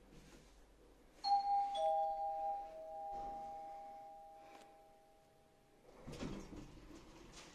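Elevator chime: two clear tones, the second lower, a ding-dong that rings on and fades over several seconds. A short rustle follows near the end.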